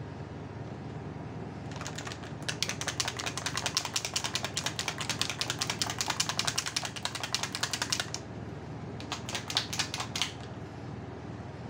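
Rapid, even clicking, many clicks a second, in a long run of about six seconds and a shorter run of about a second near the end, over a steady low hum.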